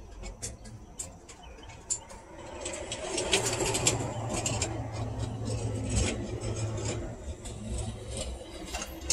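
Loose coins clinking and clicking as change is handled. Under them a low vehicle rumble swells a few seconds in and fades near the end.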